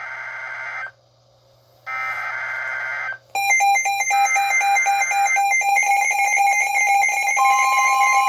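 NOAA Weather Radio alert sequence on Midland weather radios: two short bursts of SAME header data tones, then about three seconds in the radios' electronic alarm starts, a loud, dense multi-tone beeping. Near the end a steady warning tone joins in.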